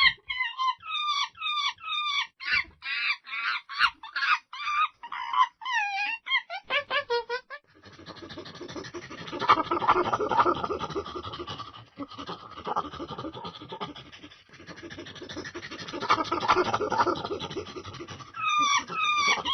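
Monkeys calling. For the first seven seconds there is a quick run of short, high-pitched calls, several a second. After that come harsher, noisier massed calls that swell twice.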